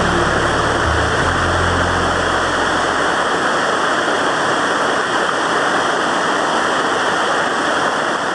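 Waterfall rushing steadily: a loud, even roar of falling water. The last of some background music fades out in the first couple of seconds.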